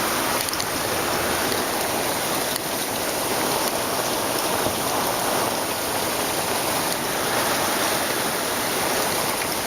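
Heavy rain falling steadily in a dense, even downpour from an outer rain band of a hurricane.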